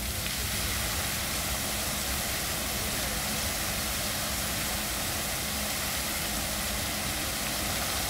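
Water jets of an ornamental fountain spraying and splashing down into the basin: a steady rushing hiss, with a low steady hum underneath.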